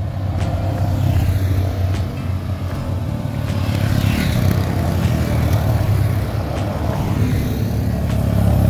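Side-by-side UTV engine running steadily under way, a continuous low drone.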